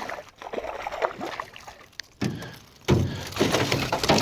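Water splashing and small knocks around a small boat as a hooked largemouth bass is reeled in to the side, growing louder and busier about three seconds in.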